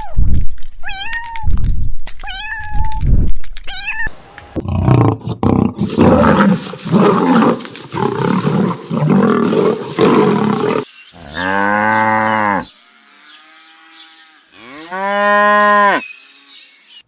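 A run of animal calls: four short, high, bending calls in the first four seconds, then about six seconds of rough noisy calling, then two long, low cow-like moos.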